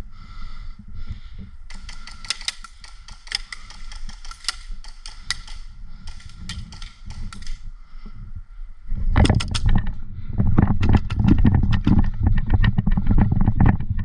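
Airsoft guns firing: a run of quick, irregular sharp snaps and clicks for several seconds. From about nine seconds in comes a louder stretch of deep thumping and rattling.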